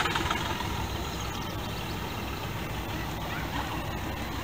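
Engine of a 1922 Gotfredson Model 50 tow truck running steadily.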